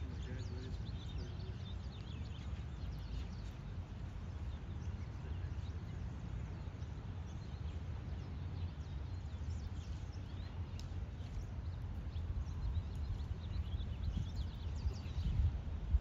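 Steady low outdoor rumble with faint, scattered high chirps of small birds, and a brief soft bump near the end.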